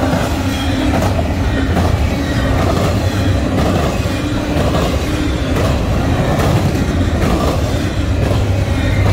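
A fast Union Pacific intermodal freight train rolling past: a steady, loud rumble of steel wheels on the rails, with scattered clacks.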